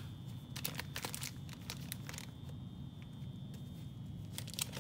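Plastic zipper bag crinkling in the hands while a pipe cleaner is untwisted from around it: a few short, scattered crinkles and clicks, fairly faint.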